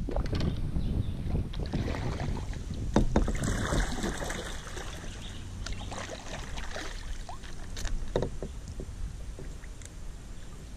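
Kayak being paddled: water splashing and dripping off the paddle and lapping at the plastic hull, with a few sharp knocks about three and eight seconds in over a steady low rumble.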